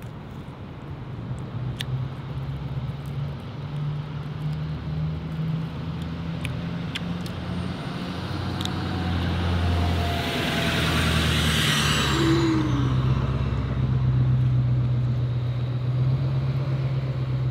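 A motor vehicle engine running with a steady low hum. About ten seconds in, a vehicle passes, its noise swelling and then falling away. A few faint clicks come earlier.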